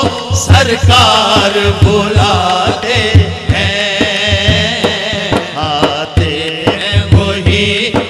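Devotional naat singing: a male voice in long, wavering melodic lines over a held backing drone and a steady hand-drum beat.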